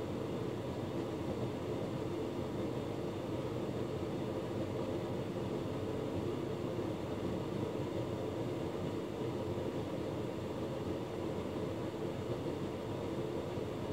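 Hotpoint Ultima S-Line tumble dryer running steadily: motor and fan hum with the drum turning.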